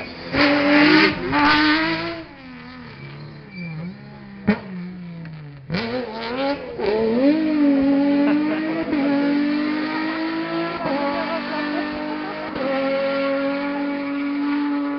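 Rally car engines at high revs. One car passes close at the start and fades with falling pitch as it drives off. After a sudden break, another rally car's engine climbs through the gears and is held at high revs, with short dips at each gear change.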